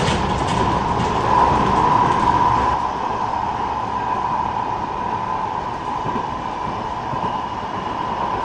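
Metrolink tram running at speed, heard from inside the car: steady wheel-on-rail running noise with a high hum, a little quieter after about three seconds.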